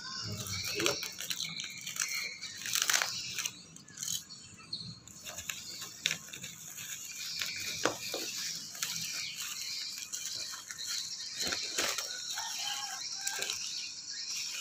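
Cardboard and plastic packaging being cut and torn open, then a bubble-wrapped rifle handled out of it, the plastic wrap crinkling and crackling in irregular rustles and clicks.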